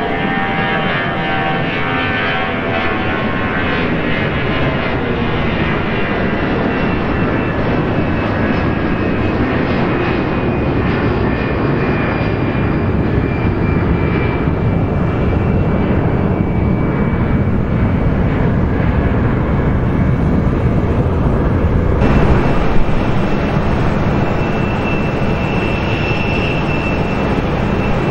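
Jet airliner's engines at takeoff thrust as it lifts off and climbs away: a continuous roar, with whining tones that fall in pitch over the first few seconds as it passes. About 22 s in, the sound changes abruptly to an Airbus A220-300 on final approach, its engines running with a steady high whine over the rumble.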